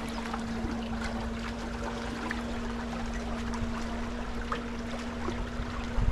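Small canal boat under way: its motor gives a steady, even hum while water trickles and splashes along the hull.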